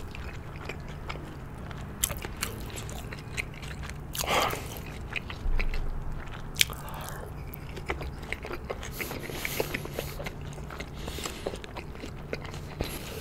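Close-miked chewing of boneless fried chicken coated in sticky yangnyeom sauce: wet mouth sounds with many short scattered clicks and some soft crunches.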